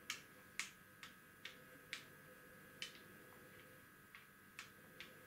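Wooden backgammon checkers tapped point by point across a wooden board as two pieces are moved six points each: about ten short, sharp clicks, roughly half a second apart.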